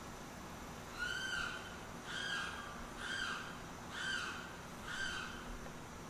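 Limpkin calling loudly: five repeated cries about a second apart, each about half a second long, starting about a second in.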